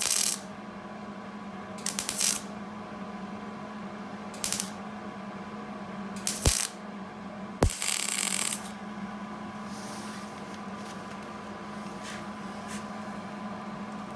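MIG welder arc crackling in five short bursts, the last about a second long, as tack welds are laid stitch by stitch to fill holes in a thin 20-gauge sheet-metal patch panel without blowing through. A steady low hum runs underneath.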